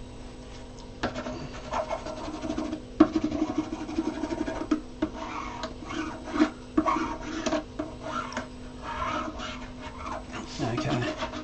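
Irregular scratching and rubbing on a 3D-printed plastic part as glue is spread along its edge, with small sharp clicks of the part being handled.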